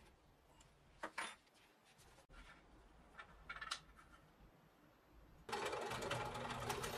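A short clatter and a few light knocks as the board and tools are handled, then a benchtop drill press is switched on a little over five seconds in and runs steadily, its motor and spinning chuck with a Forstner bit idling above the wood.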